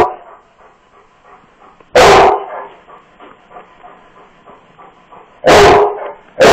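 A dog barking at another dog in sharp, single loud barks, one about two seconds in, another about three and a half seconds later, and a third at the very end, with quiet gaps between them; a quarrel over food.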